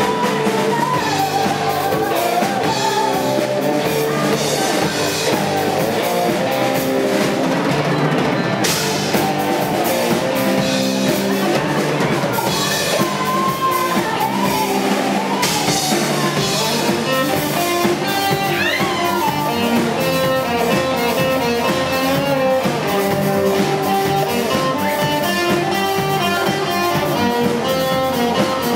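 Live rock band playing: drum kit and guitar keeping a steady beat, with a brief rising slide partway through.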